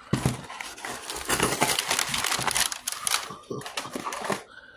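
Crinkling and rustling of a cardboard shipping box and its packing being opened and handled, a dense crackling stretch of about three seconds that then thins out.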